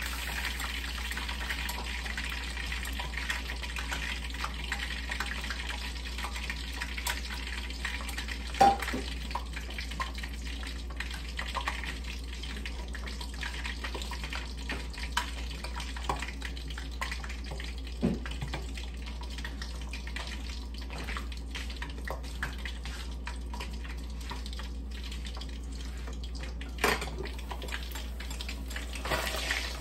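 Milkfish frying in oil in a lidded wok: a steady sizzle with scattered small pops. A few louder knocks come through, the last near the end as the glass lid is lifted off.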